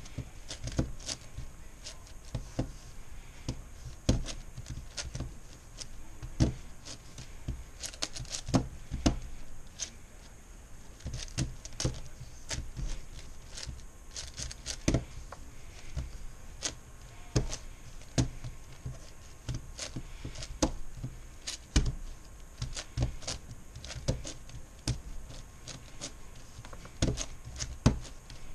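MoYu Meilong 10x10x10 cube being turned one-handed during edge pairing: an irregular run of plastic clicks and clacks as its layers turn, several a second.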